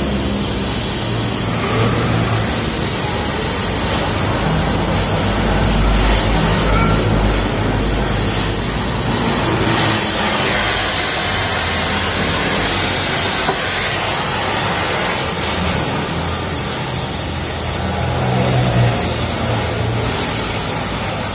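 Gas welding torch hissing steadily as it welds the exhaust's middle muffler section, over a fluctuating low rumble of vehicle engines.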